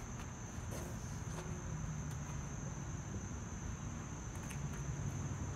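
Steady high-pitched insect chirring over a low background rumble.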